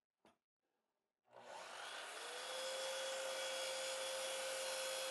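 Makita sliding miter saw starting up about a second in, its motor pitch rising briefly and then holding a steady whine as the blade cuts through a laminated oak-and-maple board.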